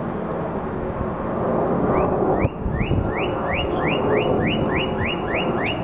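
Jet engines of a climbing twin-engine airliner rumbling overhead. From about two seconds in, a rapid run of short rising chirps, about three a second, sounds over the rumble.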